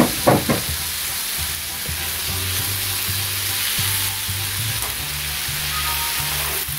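Chopped zucchini, onion and tomato sizzling as they fry in a pan, with a steady hiss throughout and two sharp clicks about half a second in.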